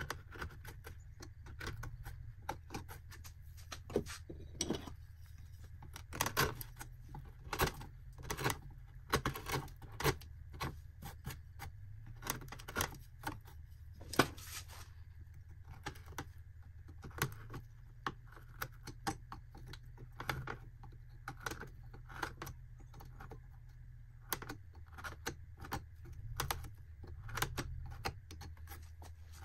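Carving knife cutting into cottonwood bark in short, irregular clicks and scrapes, with a louder clack about fourteen seconds in as tools on the workbench are handled. A steady low hum runs underneath.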